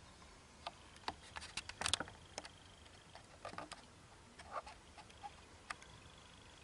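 Light clicks and taps of small plastic and metal parts being handled while a DVD player's disc loader mechanism is taken apart by hand, with a brief cluster of louder clicks about two seconds in.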